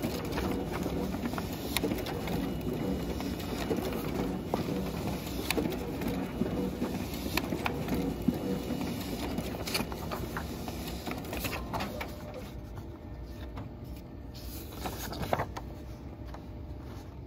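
Xerox VersaLink colour laser printer running, a steady machine hum with scattered light clicks and paper sounds. It grows quieter from about twelve seconds in.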